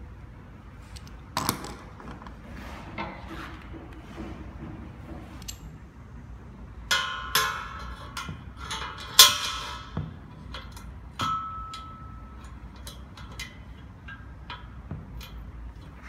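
Aluminium quick-release truss clamp being handled and fitted onto an aluminium truss tube: scattered metallic clicks and clanks as the jaw and lever close and metal meets metal. The loudest knocks come about seven to ten seconds in, and one a little later leaves a short ringing tone.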